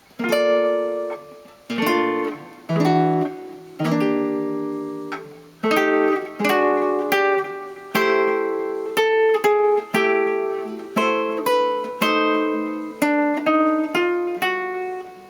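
Solo guitar playing a chord-melody passage, chords with the melody on top. It starts with a few chords struck and left to ring about a second apart, then moves into a quicker run of melody notes over held chords.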